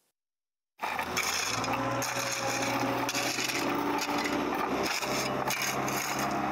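A steel shovel scraping and digging into crushed stone, starting about a second in, with repeated gritty scrapes over the steady hum of an engine running.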